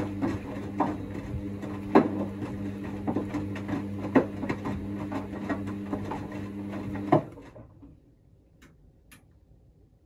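Hoover DXA front-loading washing machine turning its drum in the second rinse: a steady motor hum with wet laundry falling in the drum in repeated knocks. The motor stops about seven seconds in with a last knock.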